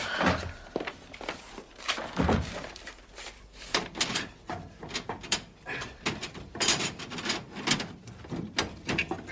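Irregular clanks and knocks of a wood-fired iron kitchen range being stoked: metal lids and the firebox door handled while wood is pushed in. The range is smoking because the wood is too green.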